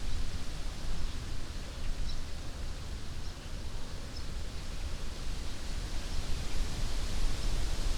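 Wind blowing through the leaves and branches of an old alder tree: a steady rustling hiss over a low rumble, growing stronger toward the end. A few faint high chirps come through in the first half.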